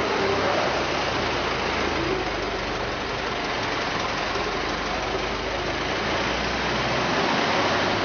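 Ford Model T pickup's four-cylinder engine running steadily as the truck drives slowly, with a dense, even noise over it.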